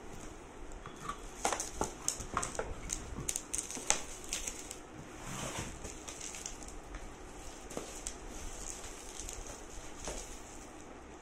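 Cardboard box and bubble-wrap packaging rustling and crackling as a packed appliance is pulled out and handled. There are a run of sharp clicks and knocks in the first half, the loudest about four seconds in, then softer rustling.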